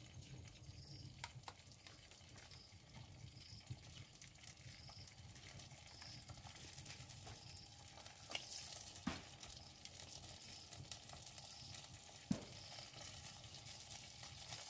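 Faint sizzling of food cooking in a pot over an open wood fire, with a few sharp crackles from the burning firewood. A faint high chirp repeats about every 0.7 seconds.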